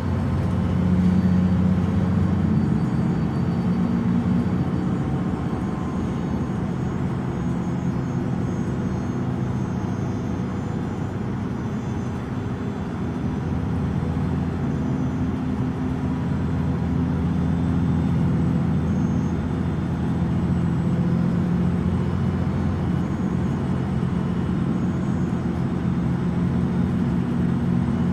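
MAN Lion's City Euro 6 city bus idling at a standstill, its MAN D0836 LOH six-cylinder diesel running steadily.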